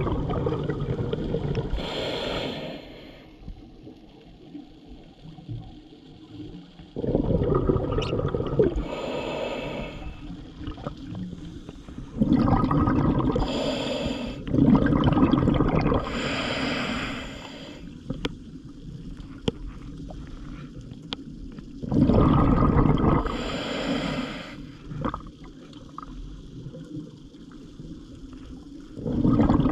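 Scuba diver breathing through a regulator underwater. Each breath is a hiss of air through the regulator followed by a rumbling gush of exhaled bubbles, repeating every five to eight seconds with quieter gaps between.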